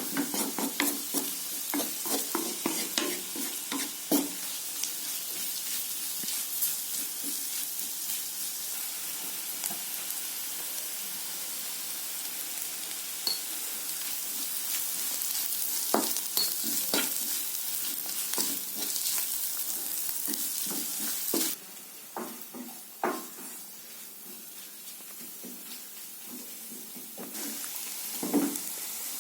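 Food sizzling in hot oil in a frying pan while it is stirred, with the spoon clicking and scraping against the pan. The sizzle drops away suddenly about three-quarters of the way through, then returns near the end.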